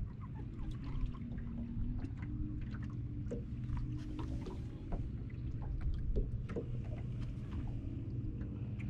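A boat's motor humming faintly with a wavering pitch over a steady low rumble, with water lapping and ticking against the boat's hull.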